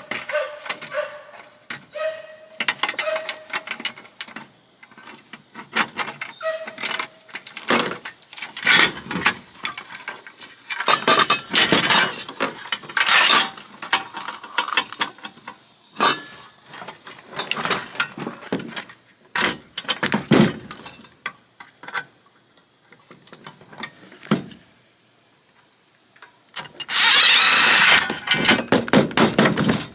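Irregular clicks, knocks and clatter of metal parts and tools as an oscilloscope's chassis is taken apart by hand, with a couple of seconds of louder steady rasping noise near the end.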